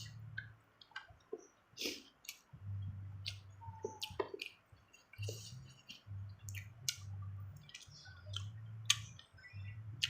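Crunching and chewing of raw young cucumber and green mango, heard as a string of irregular, crisp crunches and wet mouth clicks.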